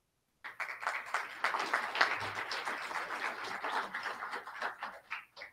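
Audience applauding: a dense patter of many hands clapping starts about half a second in and thins to a few scattered claps near the end.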